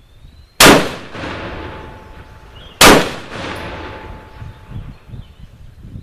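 Two single shots from a 10.5-inch-barrel AR-15 pistol firing 5.56×45mm 55-grain full metal jacket rounds, a little over two seconds apart. Each is a sharp, very loud crack followed by a fading echo.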